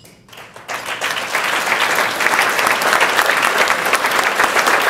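Audience applause: scattered claps start about half a second in and quickly swell into steady, dense clapping from a large crowd.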